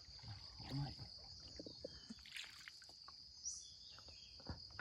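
Faint splashing and handling noises as a set fishing line is tugged up out of the water, with small knocks scattered through. A steady high-pitched insect drone runs underneath.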